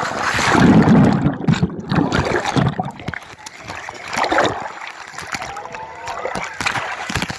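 Pool water splashing and sloshing, mixed with loud rubbing and knocking from cloth and hands against the phone's microphone.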